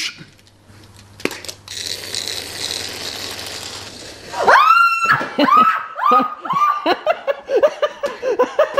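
A woman's sudden high scream, sharply rising, followed by a rapid run of short shrieks and yelps: a fright at a remote-control toy centipede on the floor. Before it, a few seconds of steady hiss.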